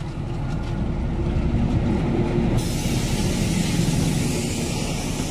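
Loud, steady rumble of a heavy vehicle passing close by, with a hiss joining in about two and a half seconds in.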